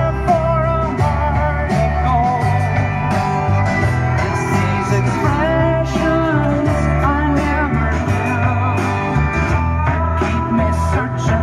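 Rock music with guitar and a singing voice over a steady drum beat and bass.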